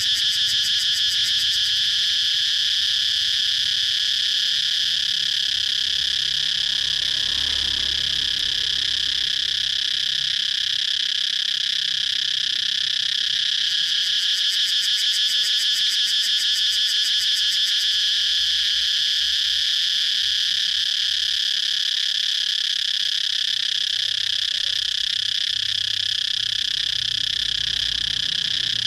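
Cicadas calling in one steady, high-pitched drone with a fast pulse to it.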